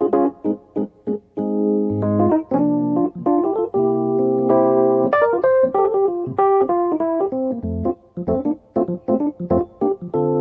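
Background keyboard music: an electric piano plays quick runs of notes alternating with held chords.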